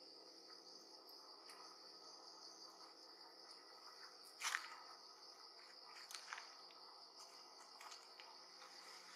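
Steady high-pitched trilling of insects, with a few faint clicks or rustles; the loudest is a short sharp snap about halfway through.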